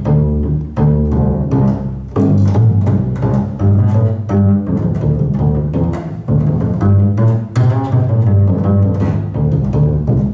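Upright double bass played pizzicato: a solo line of plucked low notes following one another without pause.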